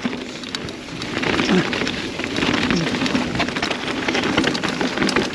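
Mountain bike tyres rolling down a dirt trail: a steady gritty crackle of tyres over loose gravel and rough ground.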